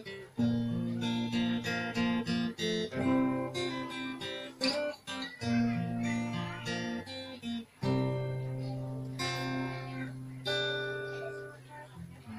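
Solo acoustic guitar played by hand: a picked melody of single notes over held, ringing bass notes, with brief pauses between phrases.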